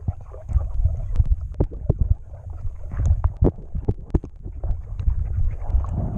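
Irregular knocks and scrapes of barnacles being scraped off a boat's hull, several a second, over a low rumble.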